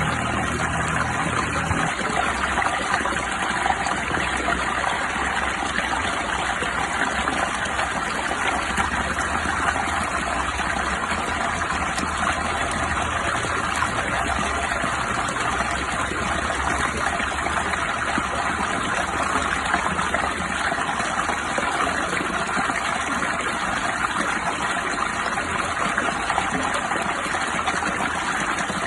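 Steady rushing water, a continuous even wash of sound with no distinct drops or breaks.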